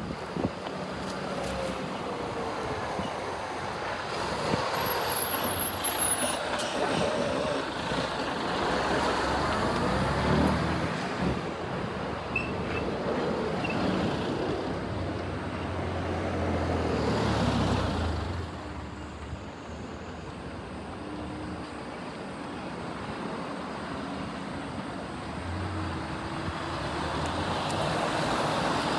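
Road traffic passing, with heavy vehicle engines. The sound swells and fades as vehicles go by and is loudest about 17 seconds in.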